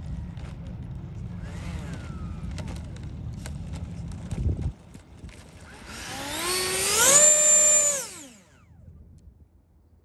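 A low rumble with scattered clicks that cuts off a little before halfway. About six seconds in, the E-flite Viper 90 mm electric ducted fan spools up to a loud high-pitched whine, holds it for about a second, and spools back down.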